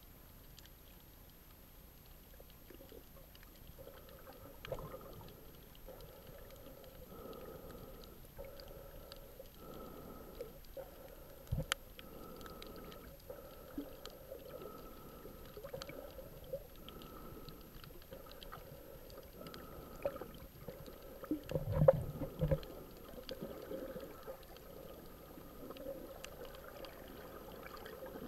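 Muffled underwater sound picked up by a camera in a waterproof housing: a steady low wash with a faint, slightly pulsing hum and scattered clicks. A few louder low thumps come about twenty-two seconds in.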